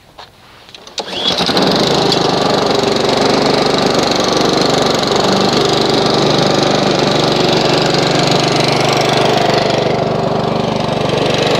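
Honda HRX217HYA lawn mower engine starting about a second in and then running steadily at a constant speed. It is being started cold and run up to warm the oil before an oil change.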